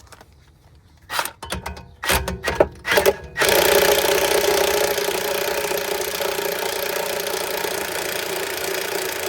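A few clinks of tools being set on the part, then about 3.5 seconds in a power tool, most likely an impact wrench, starts running steadily on a seized sway bar link nut.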